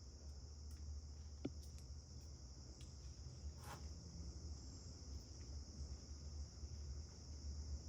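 Faint background: a steady high-pitched whine over a low rumble, with a small click about a second and a half in and a short noise near four seconds.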